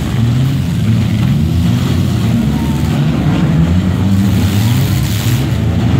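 Several four-cylinder demolition derby cars' engines running and revving loudly together.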